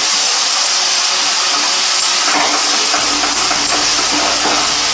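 Tamarind pulp and sugar syrup hissing and sizzling steadily in a hot pan on a gas flame while a spoon stirs it.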